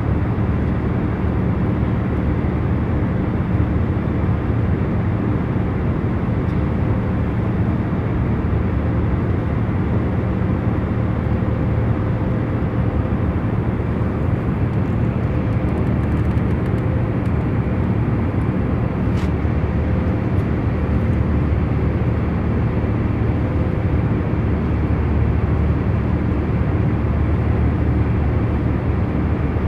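Airliner cabin noise in cruise flight: a steady rushing drone, strongest in the low range, with a few faint constant hum tones under it.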